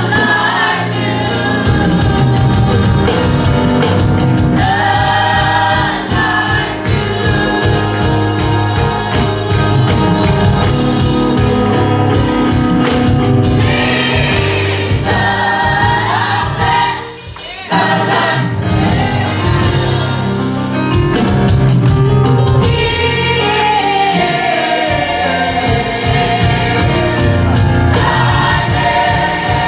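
Gospel worship music with choir singing over a band with bass and drums, briefly dropping away for a moment about two-thirds of the way through.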